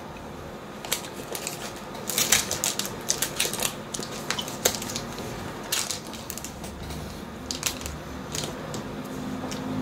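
Close-up eating sounds from a soft nougat bar in a foil wrapper: irregular sharp clicks and crackles from chewing and from handling the wrapper, thickest in the first half and again briefly near the end.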